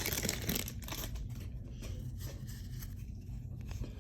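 Plastic team bag crinkling as a stack of baseball cards is pulled out of it, loudest in the first half-second. After that come softer rustling and small clicks as the cards are handled.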